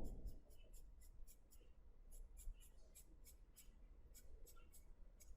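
Faint, quick short strokes of a drawing tool scratching on sketchbook paper, about three or four a second, as short feather-like hatching lines are drawn.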